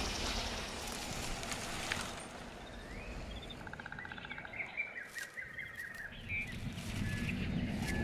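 Forest ambience: leaves rustling in the wind for the first couple of seconds, then small birds chirping and trilling, with short rising calls and buzzy trills from about two seconds in.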